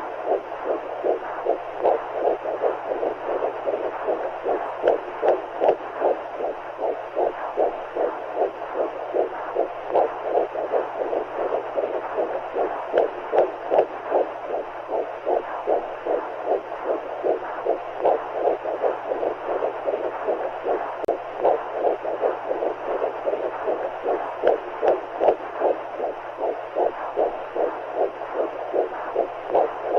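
Womb sound for soothing a baby: rhythmic whooshing heartbeat pulses over a steady rushing noise and a low hum, meant to mix the mother's and baby's heartbeats with the sound of amniotic fluid.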